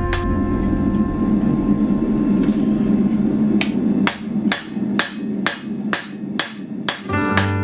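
A steady low rushing noise, then from about four seconds in, hammer blows on the hot Damascus steel billet, about two a second. Music comes back in near the end.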